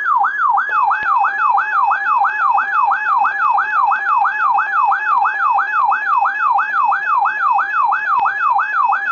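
Electronic alert tone warbling rapidly up and down in pitch, about three sweeps a second, with steady higher tones joining underneath about a second in.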